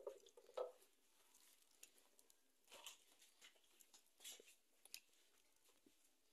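Faint, scattered crackles and clicks of a wood fire burning under a clay cazuela, near silence overall. A short scrape-and-knock about half a second in, as a wooden spoon scrapes chile paste from a plastic bowl.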